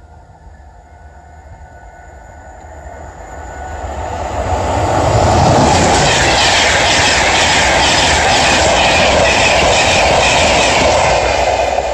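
A train approaching and passing close by: it builds up over the first five seconds, then comes a loud steady rush with a regular clatter of wheels over the rail joints, easing near the end.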